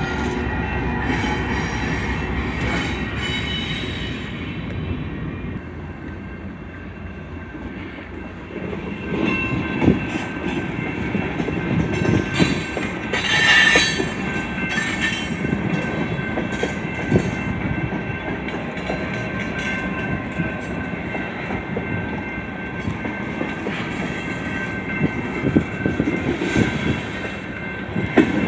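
A long train rolling past, its railcar wheels rumbling and clattering over the rails with scattered knocks. A high metallic wheel squeal rises about halfway through.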